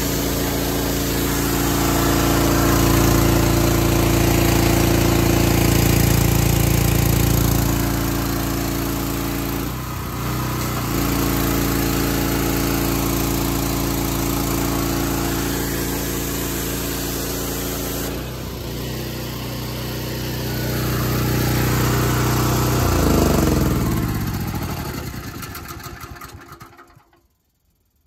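Small gasoline engine running a direct-drive pressure washer pump steadily, with spray hiss over it and two brief dips in load. Near the end the engine is shut off: its pitch falls as it winds down to a stop.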